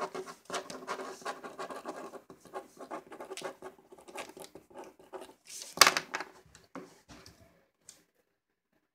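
Writing on paper: rapid small scratching strokes, with one louder scratch or rustle about six seconds in.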